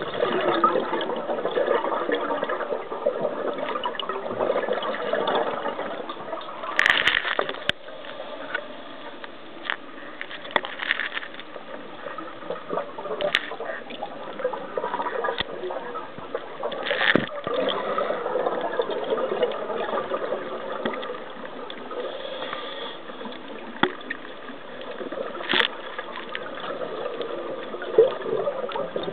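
Muffled underwater noise heard through a camera's housing, broken every several seconds by a louder rush of bubbles from a scuba diver's regulator exhaust.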